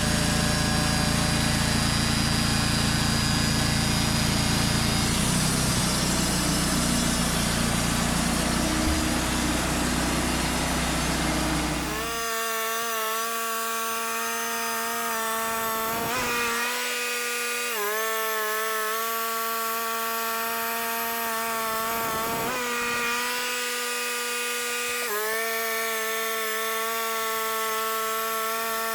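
Wood-Mizer LT35 portable band sawmill running, a dense mechanical rumble. About twelve seconds in, the low rumble stops abruptly and a steady high whine takes over, dropping in pitch briefly a few times.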